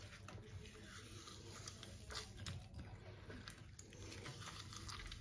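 Faint wet squelching and small irregular clicks as a hand squeezes and crushes apple chunks in a bowl of water, pressing the fruit to drive the fermentation of an apple levain.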